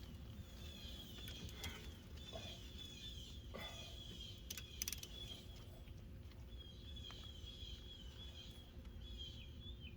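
Faint birds chirping in short repeated calls, with a few light clicks about midway.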